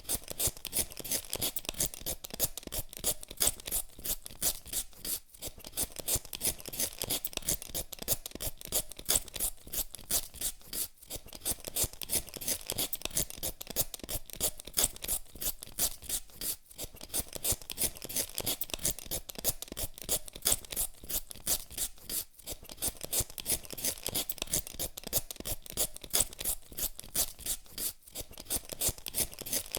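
Hand vegetable peeler scraping the skin off a raw potato in quick repeated strokes, with a short pause every few seconds.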